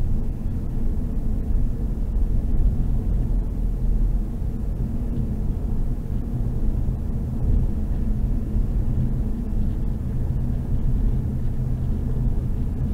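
Steady road and engine rumble inside a Hyundai i30's cabin cruising on the highway, with tyre noise from a rough, wavy asphalt surface.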